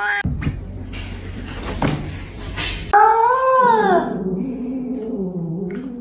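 A pet animal's drawn-out howling call that rises and then falls about three seconds in, trailing into a lower, steady held tone. Before it come a few seconds of rumbling, knocking noise.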